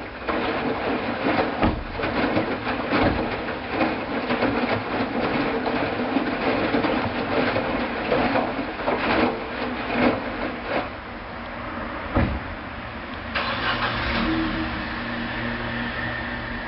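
Hoover washing machine running a cycle. A steady mechanical hum with a dense noise full of irregular knocks starts abruptly, and about 13 seconds in it changes to a lower hum with a higher whine.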